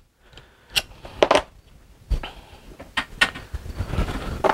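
Clamp block of a nylon fuel line fitting tool being handled and undone: scattered sharp clicks and knocks of metal and plastic parts as its wing-nut clamp is loosened.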